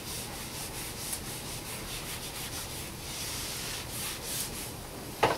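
Whiteboard eraser wiping marker off a whiteboard: a dry rubbing hiss in repeated back-and-forth strokes. A short, louder sound comes near the end.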